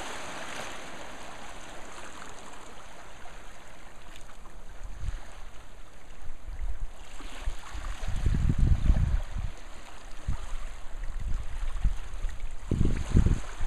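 Small waves lapping and washing over rocks at the water's edge, a steady watery hiss. About eight seconds in and again near the end, low rumbles rise over it and are the loudest part.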